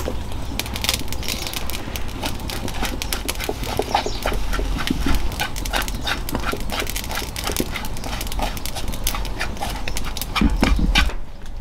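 Dog sounds, with many short clicks and knocks throughout.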